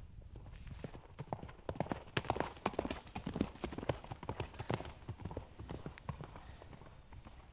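Rapid footfalls of something passing close by: a quick run of hard knocks that builds about a second in, is loudest in the middle, and fades away toward the end.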